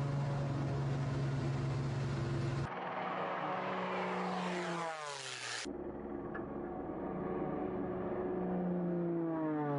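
Single-engine propeller plane's engine running steadily; the plane then passes twice, its engine pitch falling as it goes by, about four to five seconds in and again near the end.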